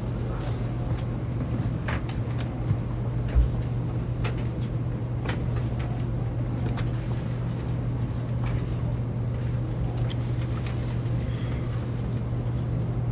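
Steady low hum inside a shinkansen passenger car standing at the platform, with scattered light clicks and one low thump about three seconds in.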